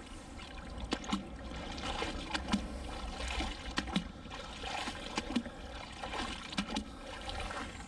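Water splashing and trickling as a magnet-fishing magnet and its rope are worked in and out of canal water, with scattered sharp clicks and knocks of metal on the magnet.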